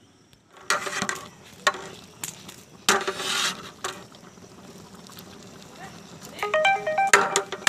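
A metal ladle stirring chunks of beef in a large degh, knocking and scraping against the pot in several separate strokes.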